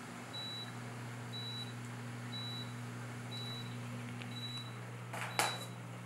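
Adora dishwasher's leak alarm beeping: a short high beep about once a second after the leak sensor has tripped, over a steady low hum from the machine. A single sharp click or knock comes about five seconds in.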